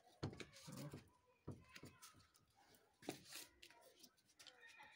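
Faint, scattered clicks and scrapes of a screwdriver working a screw on a small hand-held metal throttle-body valve part.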